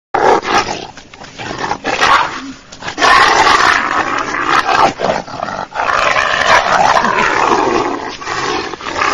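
Wolf snarling and growling as it attacks, rough and harsh, patchy at first and then loud and nearly continuous from about three seconds in.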